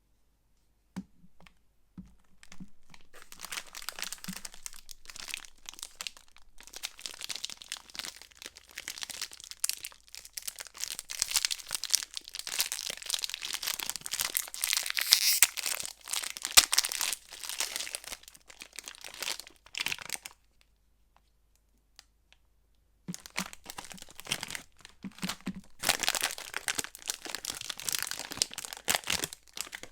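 Soap wrappers being unwrapped by hand, the packaging crinkling and tearing in dense crackles. It stops for a couple of seconds about two-thirds of the way through, then starts again.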